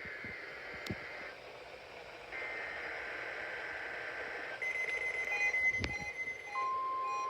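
NOAA Weather Radio EAS/SAME digital header data bursts for the required weekly test: raspy, buzzy data squawks, two of them about a second apart, then short beeps. A single knock comes near the end, and a steady beeping-free tone starts just after.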